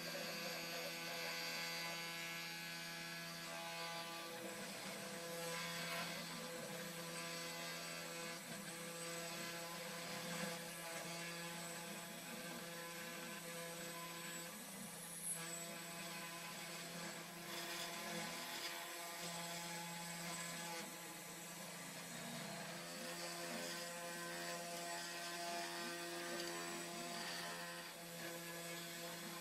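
A Sainsmart 3018 PROVer desktop CNC router running, its spindle motor giving a steady hum with a few small changes in tone as a 1.4 mm bit carves a wooden log slice.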